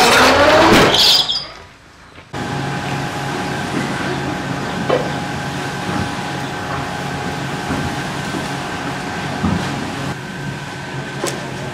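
Two-wheeled metal cart frame rolling and rattling across a concrete floor for about the first second, with a squeak. After a sudden change a couple of seconds in, a steady mechanical hum with a low drone runs on.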